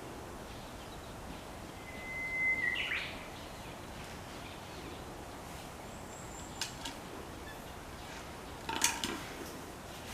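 A bird's whistled call, one held note that ends in a short upward flick, over a steady outdoor background hiss; a few sharp clicks follow, the loudest near the end.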